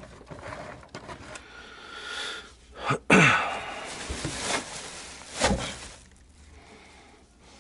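Handling noise: irregular rustling of plastic bags and cloth with knocks and clicks as things are moved around, loudest with a sharp knock about three seconds in, then fading.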